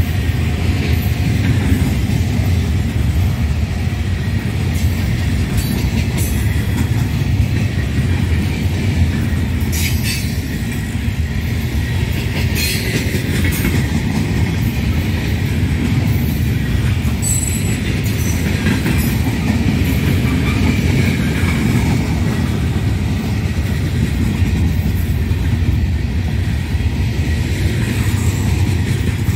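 Freight train's open-top cars rolling past close by: a steady, heavy rumble of steel wheels on rail with scattered clicks and a few brief high wheel squeals around the middle.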